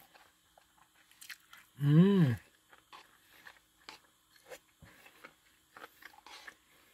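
Close-up mouth sounds of chewing a mouthful of fried rice: soft wet clicks and light crunches. About two seconds in comes a short hummed "mm" of enjoyment that rises and falls in pitch.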